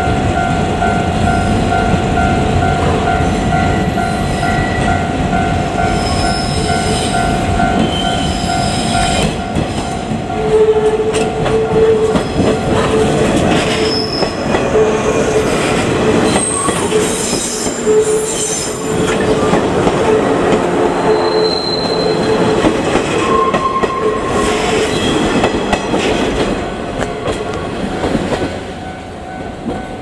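A JR Kyushu 415-series electric train rolls slowly past over curved pointwork, its wheels clattering over rail joints with short high wheel squeals. It is loudest as it passes close by about halfway through and fades near the end. A level-crossing warning bell dings steadily and repeatedly under it.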